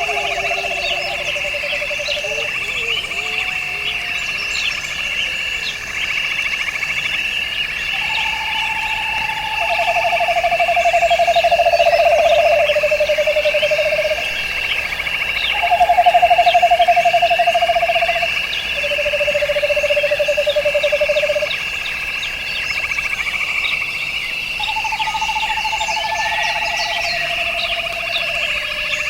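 A chorus of frogs and insects: a steady high-pitched trilling drone, with lower pulsed trills over it. The lower trills come in sets of about three notes that step down in pitch, each note one to two seconds long.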